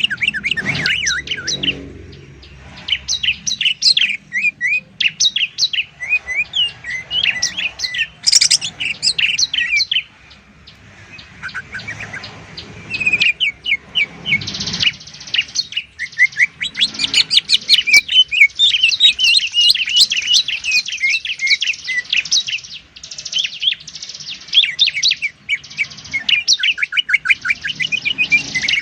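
Green leafbird (cucak ijo) and bar-winged prinia (ciblek) singing in fast, dense runs of high chirps and trills, with a short lull about ten seconds in.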